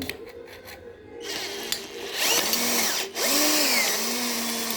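Electric drill driving a sheet-metal cutting adapter into corrugated steel sheet, running in two spurts with a short break between. The motor pitch dips and recovers as the cutter bogs down at a bend in the sheet, where it jams.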